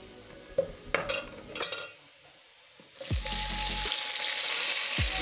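A metal spoon clicks against a metal pot as chopped onions are stirred in oil. About three seconds in, a loud, steady sizzle starts as chopped tomatoes and carrots are tipped into the hot oil.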